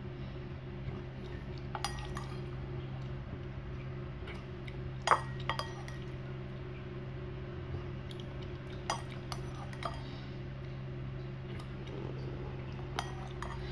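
Metal spoon clinking against a ceramic bowl in short, irregular clinks while scooping up the last of the noodle broth, the loudest clink about five seconds in. A steady low hum runs underneath.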